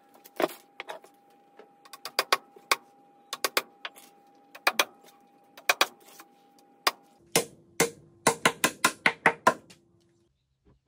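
Wooden mallet knocking glued dowels into holes in a timber workbench frame: sharp knocks, scattered at first, then a quick run of about ten blows near the end.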